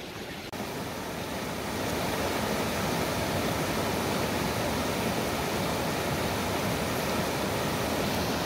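Mountain creek rushing over rocks in a shallow riffle: a steady, even rush of water that grows a little louder over the first two seconds, then holds.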